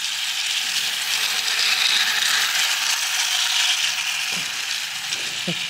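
Battery-powered Centy toy cargo train running on its track: a steady mechanical noise from its small motor and gears.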